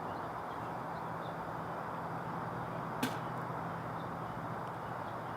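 Steady background hiss with a low hum, and one short sharp click about three seconds in.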